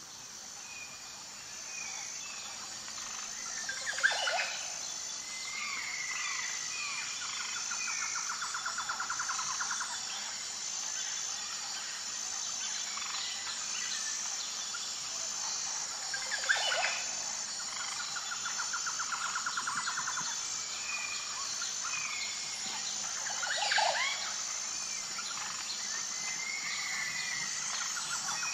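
Tropical rainforest ambience of bird calls over a steady high-pitched drone. Short whistled calls come and go, a loud sweeping call sounds three times, and a rapid pulsed trill recurs about every ten seconds.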